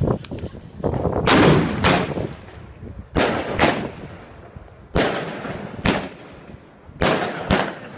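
A 238-shot Royal Fireworks cake firing: its tubes launch shot after shot, a sharp bang each time, mostly in pairs about half a second apart and coming every second or two, about eight in all.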